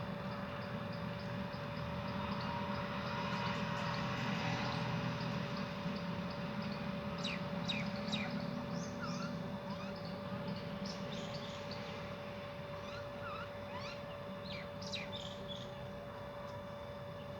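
Birds chirping: scattered short, high calls that slide down in pitch, in clusters about a third of the way in and again past the middle. Under them runs a steady low rumble and a constant hum.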